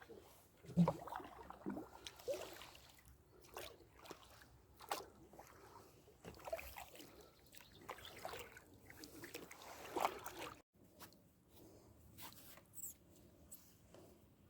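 Kayak paddles dipping and pulling through lake water, with drips trickling off the blades and water sloshing against an inflatable kayak, in irregular soft splashes.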